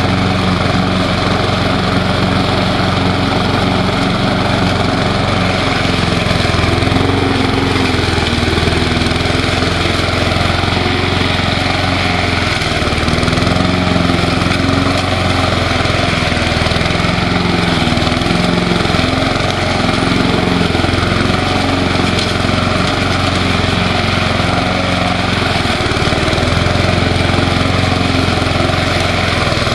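Propane-fuelled Briggs & Stratton engine on a Sears Craftsman push mower running steadily while its blade cuts through thick ground cover. The engine speed wavers only slightly under the load and barely drops.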